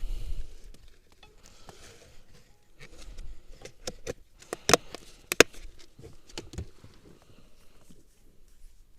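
Close handling noises as a grasshopper is threaded onto a small fishing hook: scattered light clicks and rustles, with two sharp clicks about five seconds in and a low thump at the very start.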